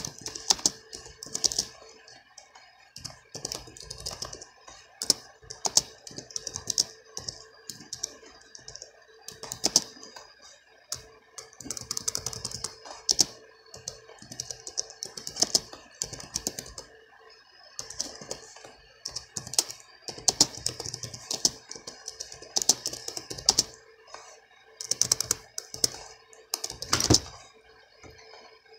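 Typing a comment on a keyboard: quick runs of key clicks broken by short pauses, with one louder click near the end.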